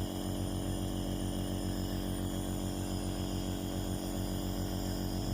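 Nebulizer compressor running with a steady, unchanging hum and buzz.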